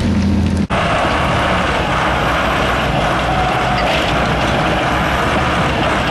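Heavy diesel engine running steadily; about a second in, a sudden cut switches from a smooth, even hum to a rougher, noisier running sound.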